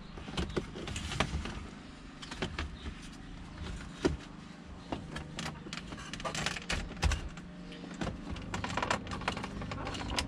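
Irregular small clicks and knocks as the wood-grain trim panel around the gear shifter is pried loose from its clips by hand.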